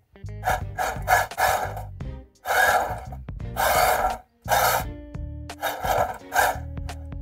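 Cheerwing UDIRC Breaker 1:16 RC drift truck's electric motor and drivetrain whirring in about ten short throttle bursts, its tyres scrubbing on the smooth bench top as it slides.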